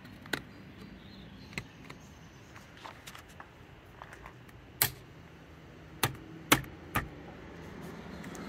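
Sharp plastic clicks and taps as a plastic end cap is pushed and snapped into the open end of a HaulMaster roof-rack crossbar. The clicks are scattered, with the loudest few in the second half.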